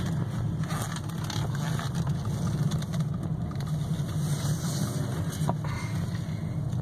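2015 Chevy Malibu LT's four-cylinder engine running at low revs as the car drives slowly, heard from inside the cabin as a steady low hum with road noise.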